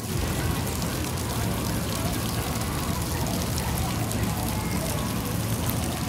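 Ground-level splash-pad fountain jets spraying arcs of water onto wet concrete, a steady splashing.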